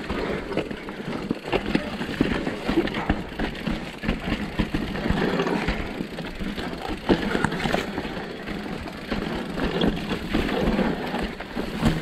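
Mountain bike being ridden down a rough trail: continuous tyre and rolling noise over dirt and rock, broken by frequent knocks and rattles from the bike.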